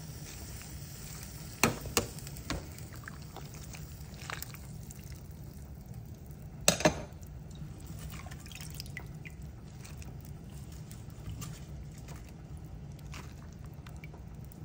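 Metal ladle stirring and pressing napa cabbage into pork sinigang broth in a stainless steel pot, with a few sharp clinks of ladle on pot about two seconds in and a louder double clink near the middle, and broth sloshing and dripping. A steady low hum runs underneath.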